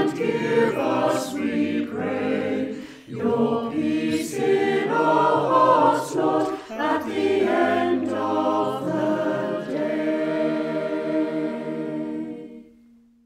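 Choir singing, ending on a long held note that fades away near the end.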